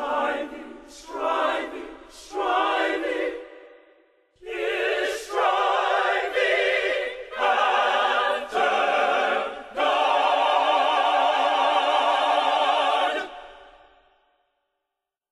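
Choir singing with vibrato: three short phrases, a brief pause, then longer phrases ending on a long held note that fades out near the end.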